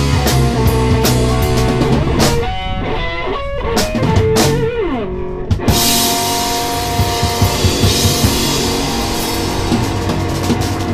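Live rock band playing electric bass, electric guitar and drum kit. About two seconds in the low bass and beat drop out for a short break of higher notes with a downward slide. The full band comes back in, cymbals bright, about six seconds in.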